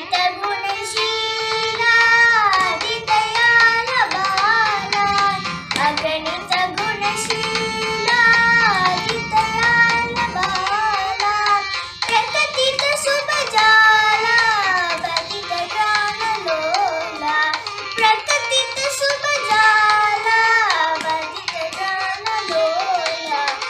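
A young girl singing a song solo, her voice sliding and bending between notes, with soft hand taps keeping time.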